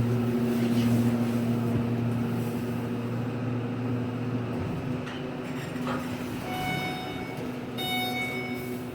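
Delaware hydraulic elevator's pump motor humming loudly as the car reaches the top floor, then shutting off about four and a half seconds in. A click follows, then two short electronic tones about a second apart, the elevator's arrival chime.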